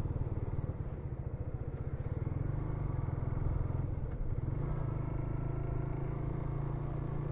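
Suzuki GSX-S150's single-cylinder engine idling steadily, an even low pulsing with no revving.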